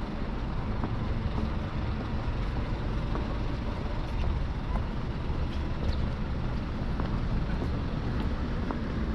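City street traffic: a steady low vehicle-engine noise with road noise underneath.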